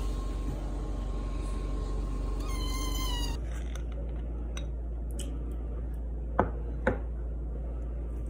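A cat meows once, a drawn-out call that rises and falls, about two and a half seconds in. Later come two sharp taps about half a second apart.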